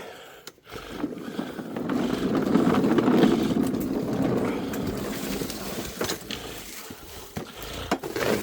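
Worx 40 cm cordless battery lawnmower running and cutting grass along an edge. The sound swells over the first couple of seconds, then gradually fades.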